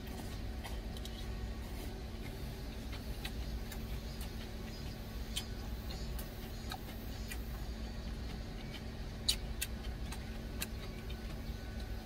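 Eating sounds: a plastic spoon clicking and scraping in a plastic food container, with chewing, over a steady low hum. One sharper click comes about nine seconds in.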